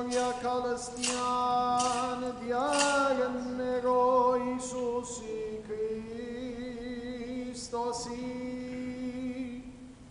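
Armenian liturgical chant: a male voice singing long held notes that step up and down slowly, with a wavering note in the middle, fading out near the end.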